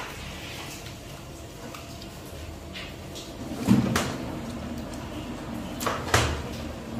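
Handling of fresh cheese curd in a cloth-lined stainless steel tray: two dull knocks, about four seconds in and again about six seconds in, as the curd is scooped up and pressed, over a faint steady hum.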